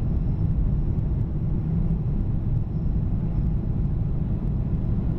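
Steady low rumble of engine and airflow noise inside the cabin of a Boeing 777-300 descending on approach, with a faint thin high tone running under it.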